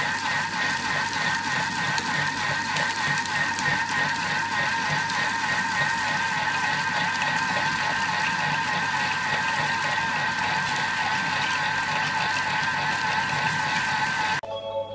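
Thermomix running at speed 4 with its whisk attachment fitted, beating eggs and sugar at 37 °C: a steady, slightly wavering motor whine. It stops abruptly near the end.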